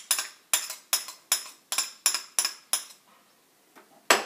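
A spoon tapping sharply against the rim of a container, about nine clinks at roughly three a second, each with a short ring, as peanut butter is knocked off it into the mixing bowl. A louder clatter begins right at the end.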